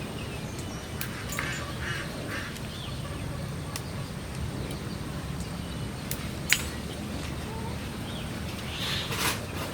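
Ducks quacking a few times in the background, with a few sharp taps and clicks, the loudest about six and a half seconds in.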